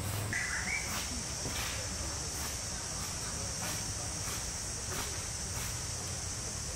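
Steady high-pitched insect chorus, continuous, with faint pulses about every two-thirds of a second; a short rising chirp sounds just after the start.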